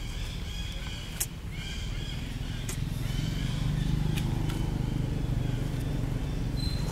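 A motor vehicle's engine running, a low rumble that grows louder about three seconds in. Three sharp clicks come about a second and a half apart.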